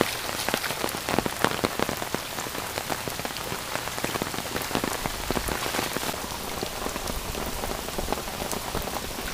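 Heavy tropical-storm rain falling steadily: a dense hiss with many close raindrop impacts ticking through it. A low rumble comes in about halfway through.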